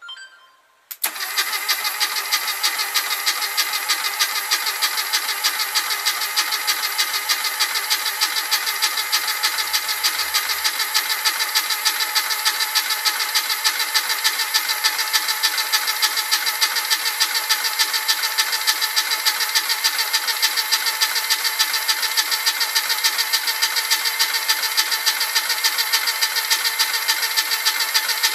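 Starter motor cranking a rebuilt Classic Mini 1380 A-series engine with its spark plugs out. It starts about a second in and keeps turning steadily with a fast, regular pulse, never catching. The engine is being spun over to build oil pressure before its first start.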